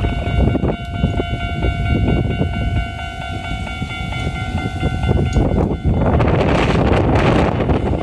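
Japanese level-crossing warning bells ringing steadily in several tones. From about six seconds in, the rumble of an approaching Keikyu 600-type electric train grows louder.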